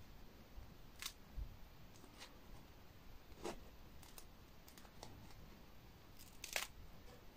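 Faint handling noise: a few scattered crackles and clicks as a slice of pan pizza is held and squeezed in the hand, the loudest a little before the end.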